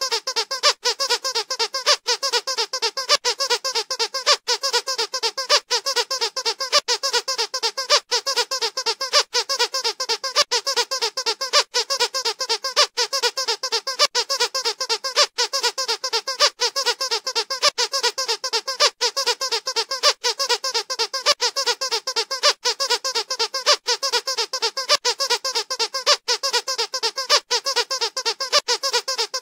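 Squeaky dog toy being squeezed over and over, a rapid unbroken run of high squeaks at a few per second.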